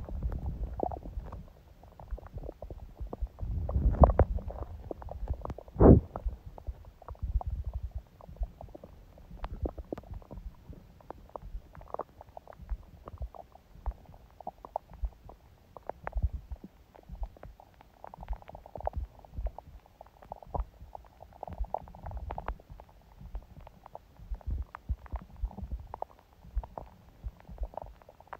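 A person's stomach and intestines gurgling softly, heard close up: irregular small gurgles and pops, with a longer rumble about four seconds in and a sharp, loud gurgle about six seconds in.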